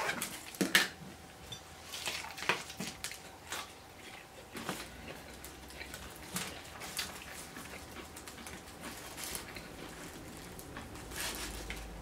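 Eating and table sounds: scattered clicks, crackles and rustles as crispy fried chicken is pulled apart by hand on its paper wrapper and a plastic fork scoops mashed potatoes from a cup. The clicks are busiest in the first few seconds and thin out after.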